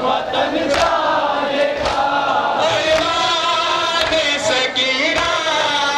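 A crowd of men chanting a Muharram lament (nauha) in unison. Hands strike chests in matam about once a second, and the sharp slaps keep time with the chant.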